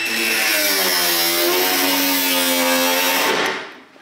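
Angle grinder with a cutting disc slicing relief cuts into a car's steel rear wheel-arch lip, so the sheet can be bent out to fit a body kit. The motor's whine sags in pitch as the disc bites, and the grinder stops and winds down about three and a half seconds in.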